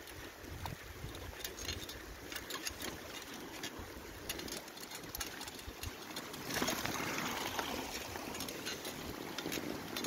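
Bicycle tyres rolling and crunching through snow with scattered clicks and rattles from the bike, over wind rumble on the microphone. About six and a half seconds in, a louder hissing wash as the wheel runs through wet slush and water.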